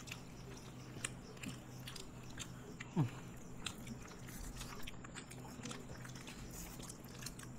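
People eating Indian sweets: faint chewing with many small mouth and eating clicks. A short falling voice sound comes about three seconds in.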